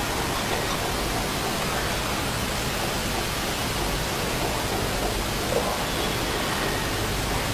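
Steady, even hiss that is spread from low to high pitches and does not change.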